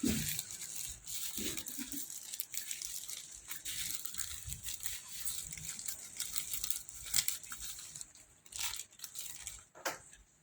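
Plastic packaging crinkling and rustling as it is handled and torn open, with scattered sharp crackles and a few louder snaps near the end.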